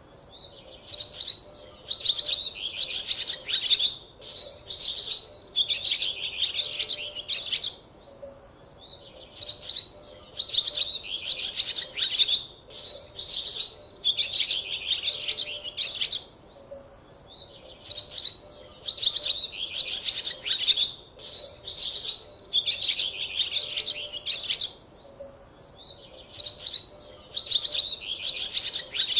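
Small birds chirping and twittering in bouts of rapid high chirps a few seconds long, with short pauses between bouts.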